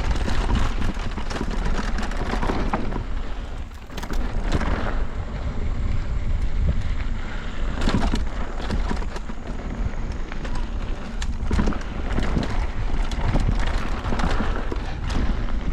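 Wind buffeting the action camera's microphone while an e-mountain bike rolls fast down a dirt trail, with frequent rattles and knocks from bumps.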